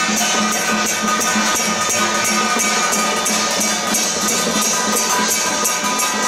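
Temple procession music: a quick, even metallic jingling beat over held instrumental notes, running steadily.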